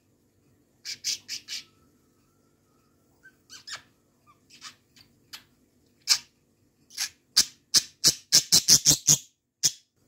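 Pet budgerigar giving short, sharp chirps and squawks: a quick run about a second in, scattered single calls, then a fast string of louder ones from about seven seconds in.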